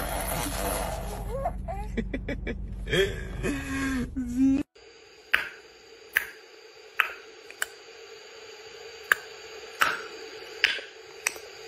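A steady low hum with short, high cooing sounds from a baby that glide up and down. After a sudden cut, a series of sharp single clicks, roughly one a second, over a faint steady hum.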